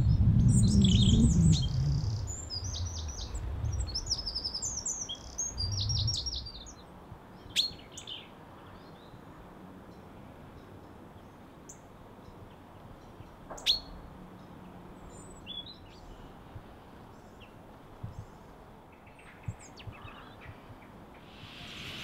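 Small songbirds chirping and singing in quick high trills, busiest in the first few seconds over a low rumble, then only scattered chirps with a couple of sharp clicks.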